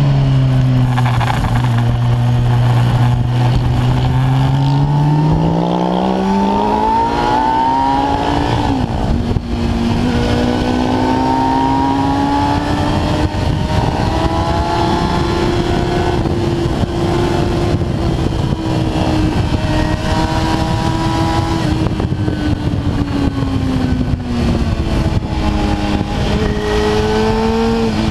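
Kawasaki ZX-10R's inline-four engine heard from on board with wind noise over the microphone. The revs climb over several seconds, dip briefly at a gear change about nine seconds in, hold high for a long stretch, then ease down with a short rise near the end.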